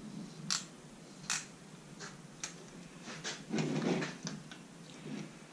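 A string of small sharp clicks and taps, with a short scraping rustle about three and a half seconds in: a meat injector being handled and knocked against a plastic container as it is dipped in to refill with injection liquid.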